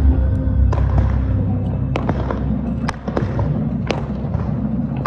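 Fireworks going off, a few sharp bangs about a second apart, over the show's music with a steady low drone.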